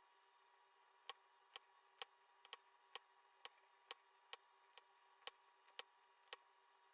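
Diamond painting drill pen tapping resin drills onto the sticky canvas: sharp, quiet clicks about two a second, over a faint steady hum.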